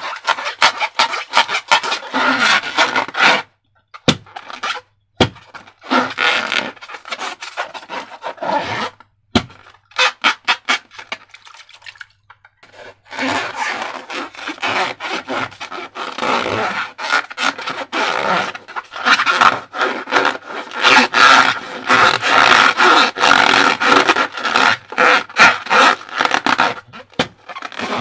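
Rubber balloons and slime being handled by hand: rubbing, scraping and squeaking with crackly clicks, in stretches broken by short pauses.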